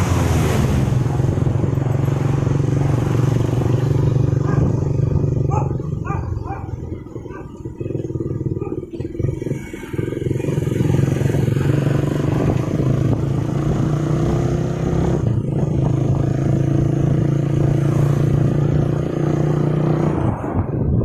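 Vehicle engine running steadily. It eases off for a few seconds near the middle, then picks up again.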